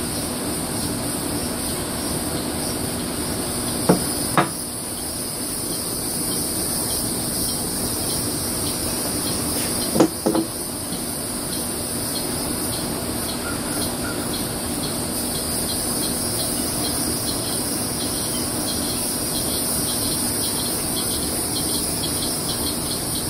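A steady, high-pitched evening insect chorus, with a few sharp clinks of glassware being knocked together or set down on a tabletop: two about four seconds in and two more about ten seconds in.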